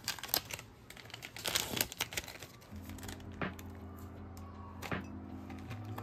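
Paper crinkling and crackling as a drip-coffee filter bag is opened and hooked onto a ceramic mug, loudest in the first two seconds with a few later rustles. Soft background music with sustained chords comes in about three seconds in.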